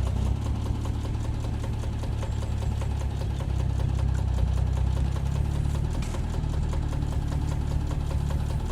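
Diesel engine of a compact construction machine running steadily.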